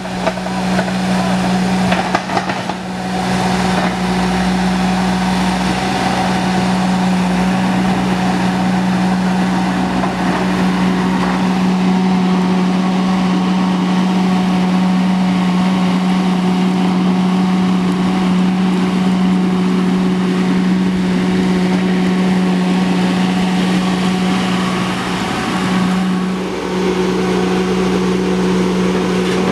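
Ditch Witch SK900 mini skid steer's engine running steadily at a constant high pitch while the machine digs rocky soil. About 26 seconds in the engine briefly dips, then comes back up.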